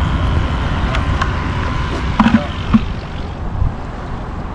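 Steady low outdoor rumble with a few sharp knocks and clatters; the two loudest come close together about halfway through.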